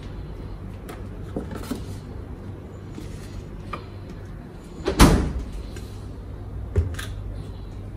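Refrigerator door swung shut with one loud thud about five seconds in, after a few light knocks of items being handled inside the fridge. A plastic milk bottle is set down on the countertop with a smaller knock near the end, over a steady low hum.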